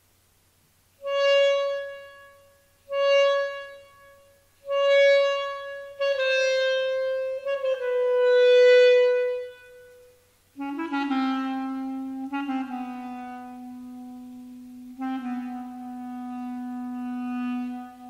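Solo clarinet: three short repeated high notes, each swelling and fading, then a short phrase stepping downward. After a brief pause it plays long low held notes, each entry started by a short note just above.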